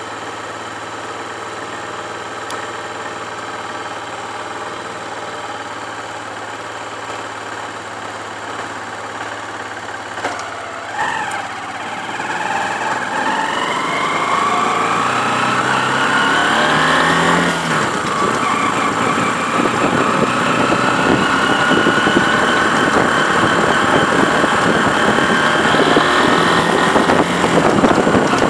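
Motorcycle engine idling steadily, then about eleven seconds in it is revved up, its pitch climbing for several seconds before it holds a louder, higher steady running speed with a whine, as for a speedometer test.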